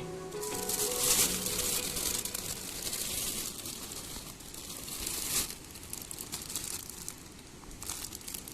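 Crinkling, crumpling rustle with many small crackles, loudest in the first few seconds with a sharp peak about five and a half seconds in. A background tune fades out at the start.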